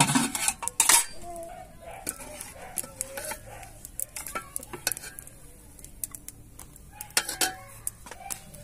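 Stainless-steel cookware clattering: a loud run of knocks and clinks of a steel lid and pot in the first second, then scattered clinks of a metal ladle against the pot, and another burst of clatter about seven seconds in.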